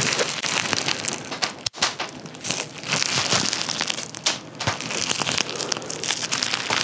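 Plastic bubble wrap twisted right against a clip-on microphone, giving a dense, continuous crackle of small pops and crinkles, with a brief break just under two seconds in.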